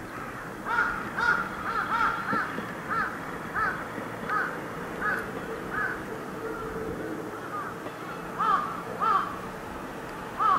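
Crows cawing over and over in short calls, about two a second, pausing midway and starting again near the end. Underneath is a faint steady drone from the approaching KiHa 110 diesel railcar.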